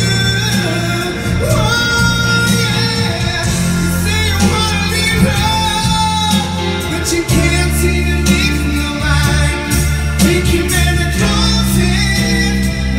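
Live stage-show music played over a theatre sound system: a male singer sings into a microphone over amplified backing music with a steady bass line.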